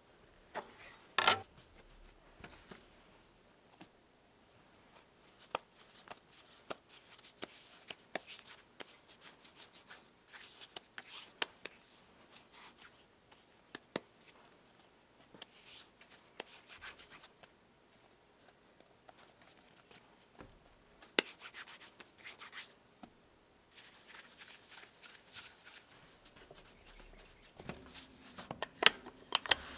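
A metal bench scraper chops down through dough onto the countertop with a sharp knock about a second in. Then come quiet rubbing, patting and occasional taps of hands working dough in flour. Near the end a wooden rolling pin rolls the dough out with a steady rubbing and a few clicks.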